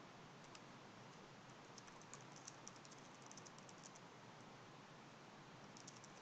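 Faint computer keyboard typing: scattered soft keystrokes in small runs over quiet hiss.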